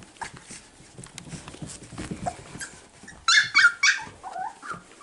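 Six-week-old cockapoo puppies playing rough, with quiet scuffling at first, then a burst of sharp, high-pitched yelps and squeals a little over three seconds in.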